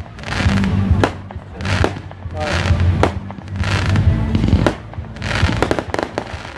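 Fireworks display: shells bursting in sharp bangs about once a second, each followed by crackling, with music playing underneath.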